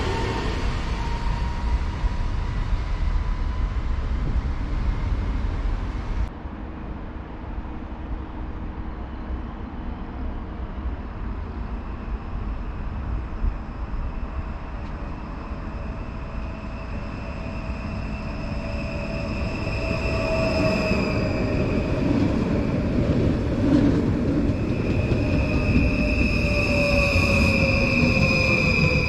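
Electric NS Stadler Flirt multiple unit pulling into the platform: the running noise builds as it approaches, with a motor whine falling in pitch as it slows and a high steady brake squeal near the end. Before that, loud train noise from another train cuts off abruptly about six seconds in.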